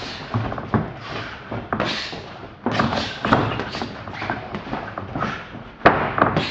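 Kickboxing strikes landing: irregular thuds of punches and kicks hitting gloves and bodies, the sharpest one a little before the end.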